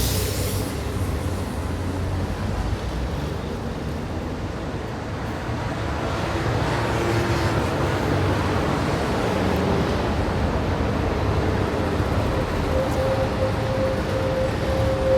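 Busy street traffic ambience: a steady mix of car, bus and scooter engines and tyres passing. Near the end a sustained single tone is held for a few seconds.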